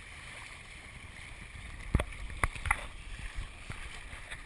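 Water gurgling and lapping against a sailing Hobie kayak's hull, with a few sharp knocks about two to three seconds in.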